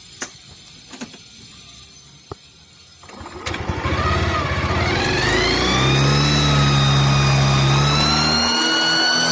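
Yamaha NMAX scooter engine starting about three seconds in after a few clicks, then running with a jet-like high whistling whine that climbs in pitch and levels off.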